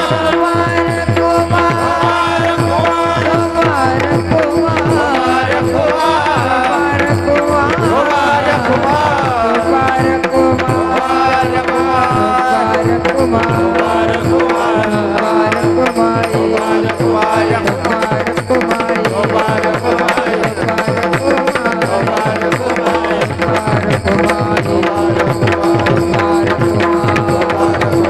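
Indian devotional bhajan music: fast, dense hand-drum rhythm with cymbal-like strikes over a steady held drone note, with a wavering sung or played melody mostly in the first half.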